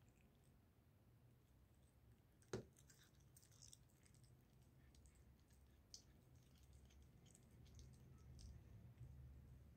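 Faint, near-silent clicks and smacks of a cat licking and chewing a piece of liverwurst, with one sharper click about two and a half seconds in, over a low steady hum.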